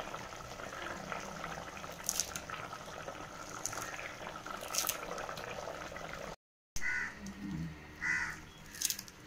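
Mutton leg curry bubbling at a boil in an aluminium pot, with a few faint pops. Two short caw-like calls come near the end.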